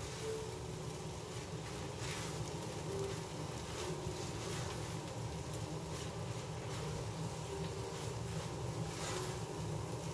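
Steady electrical buzz and hum of an induction hob heating a pan at high power, with a few soft scrapes of a wooden spatula stirring rice in the pan.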